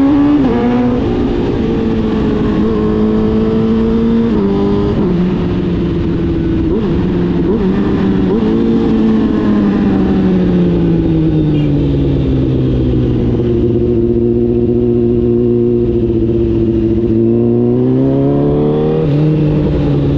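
Honda CBR1000RR inline-four engine with an aftermarket Arrow exhaust, under way on the road. Its pitch climbs at the start with a few quick steps as the gears change, sinks slowly through the middle to a steady low drone as the bike eases off, then rises again near the end.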